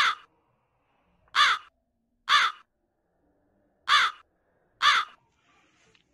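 A crow cawing: five short caws, mostly in pairs about a second apart, with longer pauses between the pairs.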